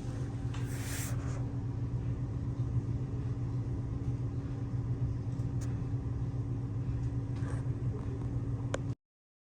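A steady low mechanical hum that cuts off abruptly near the end.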